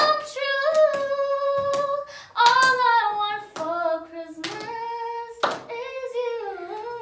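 A young woman singing a slow melody with no instruments, holding long notes, while a small group claps along in time, about once a second.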